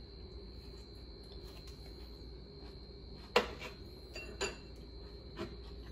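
Porcelain bowl and chopsticks set down on a hard kitchen counter: one sharp clink about three and a half seconds in, followed by a few lighter knocks.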